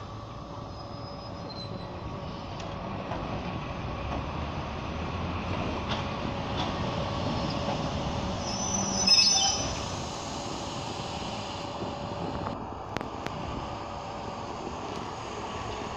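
Regional electric multiple unit pulling out of a station, with a steady electric hum and occasional wheel clicks on the rails. About nine seconds in, a brief high wheel squeal falls in pitch; it is the loudest sound.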